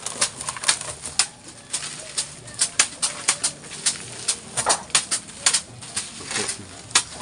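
Hands scooping and dropping crumbly dry feed material inside a plastic drum: irregular rustling and crunching, with many sharp clicks and scrapes.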